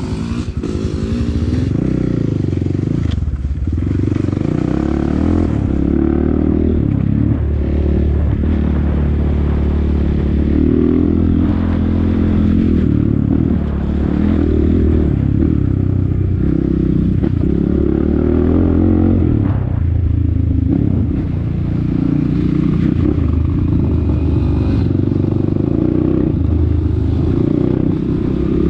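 Kayo T4 250 dirt bike's single-cylinder four-stroke engine running as it is ridden off-road, the revs rising and falling with the throttle.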